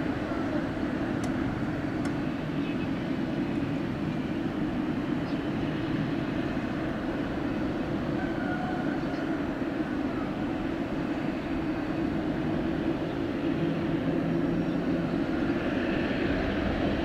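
Boeing 787 airliner's jet engines running at low thrust as it rolls slowly on the runway: a steady hum and rumble that grows a little louder near the end.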